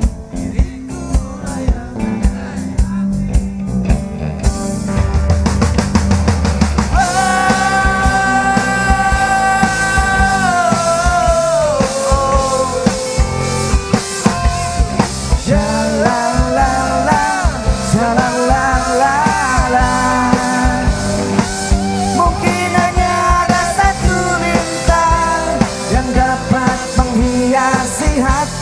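A live rock band playing an instrumental passage of a pop-rock ballad with drum kit, bass and guitar. About seven seconds in a lead melody line comes in, holding a long note before winding up and down.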